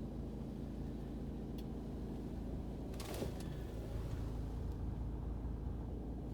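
Paccar 460 bhp Euro 6 diesel engine of a DAF XF106 tractor unit idling steadily, with a single sharp knock about three seconds in.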